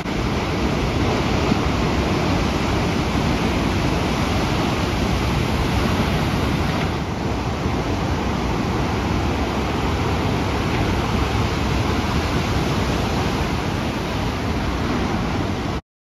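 Breaking ocean surf: a steady rushing wash of waves and white water, cutting off suddenly near the end.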